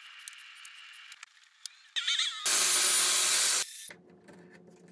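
A power tool cutting into wood in one loud burst lasting about a second, starting and stopping abruptly about two and a half seconds in, with quieter workshop noise before and after.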